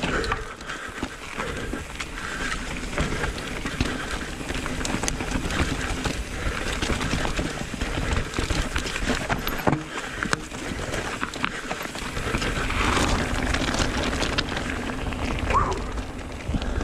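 Mountain bike descending a rocky forest trail: tyres rolling and crunching over dirt and stones, with the bike rattling and clunking over the bumps and a steady low rumble of wind on the microphone.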